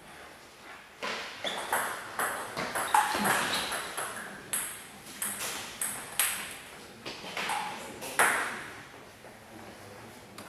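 Table tennis rally: the ball clicks sharply off the bats and the table in quick succession. It starts about a second in and ends about eight seconds in.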